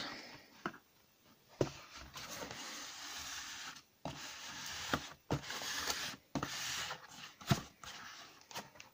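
Cardboard box being handled and turned over on a desk: its sides rub and scrape against hands and the desktop in stretches, with several light knocks.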